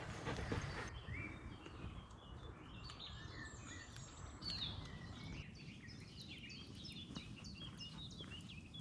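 Faint songbirds singing and chirping, with quick, repeated chirps growing busier in the second half, over a low outdoor rumble.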